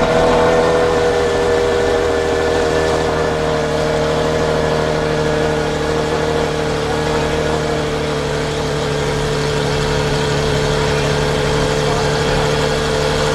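Aston Martin Valkyrie's 6.5-litre Cosworth V12 idling just after start-up. Its pitch eases down a little over the first several seconds, then it holds a steady idle.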